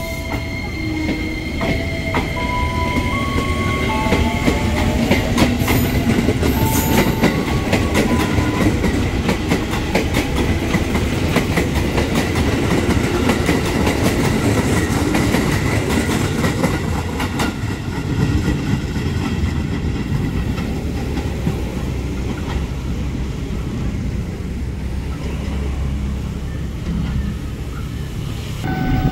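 JR 205 series electric commuter train running past: a steady rumble with wheels clicking over rail joints, loudest in the first half and easing as the last cars go by.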